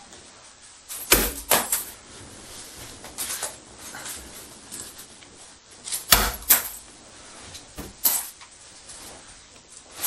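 Sharp knocks and clatters of hard objects: a cluster of three about a second in, two more around six seconds in, and a single one near eight seconds.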